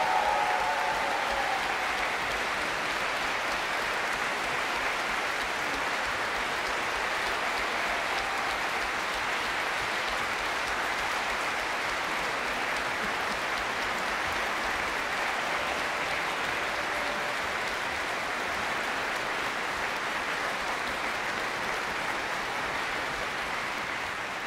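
Concert-hall audience applauding steadily, a dense and even clapping.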